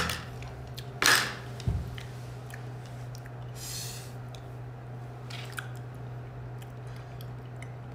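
Quiet stretch of steady low hum and faint room noise, with a short breathy rush about a second in, a soft hiss around four seconds, and a few faint clicks.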